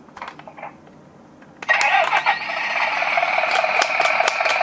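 Toy minicar making a loud, steady sound that starts about a second and a half in, with sharp plastic clicks and rattles over it near the end.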